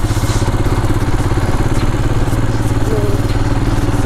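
Motorcycle engine running steadily while riding, with a rapid, even firing pulse.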